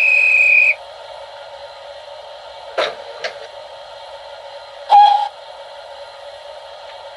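Steam sound effects from the DCC sound decoder of a Lionheart O gauge 64xx pannier tank model, heard through its small onboard speaker. A high whistle blast ends about a second in over a steady hiss of steam. Two clanks come around three seconds in, and a sharper clank with a brief tone comes near five seconds.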